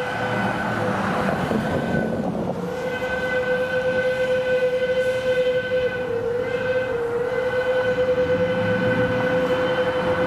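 Steam locomotive whistle sounding for a grade crossing: a short break a couple of seconds in, then one long steady blast whose pitch sags slightly midway.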